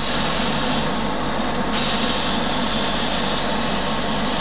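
Airbrush spraying paint onto thin plastic rods, a steady hiss that breaks off briefly about one and a half seconds in, over the steady hum of the spray booth's fan.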